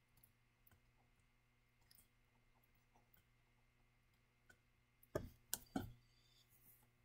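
Faint scattered ticks of a stylus on a tablet screen during handwriting, with three louder clicks close together about five seconds in.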